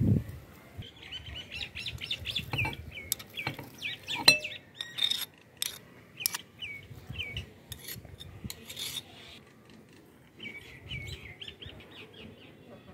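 A bird chirping in two runs of rapid, short hooked notes, one starting about a second in and another near the end. Scattered sharp clicks and knocks come in between, the loudest about four seconds in.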